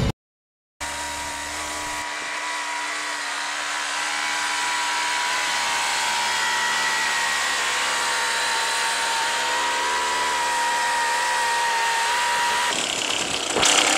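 Hangkai 3.6 hp two-stroke outboard motor running steadily at idle, with its lower unit in a test tub of water, after a clutch repair with a lighter tension spring. It runs smoothly, with a steady whine over the engine note, and turns noisier about a second before the end.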